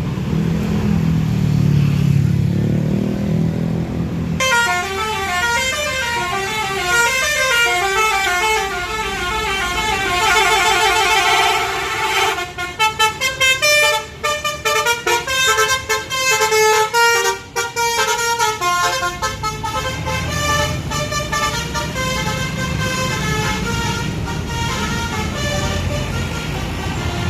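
Bus's telolet basuri melody horn playing a rapid tune of stepping tones, starting about four seconds in over the low running of the bus engine. The tune turns choppy with short gaps partway through, then carries on more faintly near the end.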